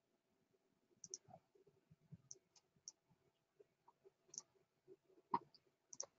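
Near silence: room tone with about a dozen faint, short clicks at irregular intervals.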